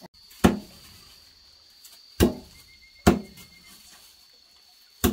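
Four sharp knocks at irregular intervals, each ringing briefly, over a faint steady high-pitched tone.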